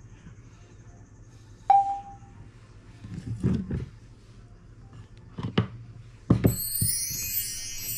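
Kitchen handling sounds: a sharp clink with a short ring about two seconds in, then a few knocks and clatters of a plate and board on the counter. Near the end a kitchen tap is turned on and water runs steadily into the sink.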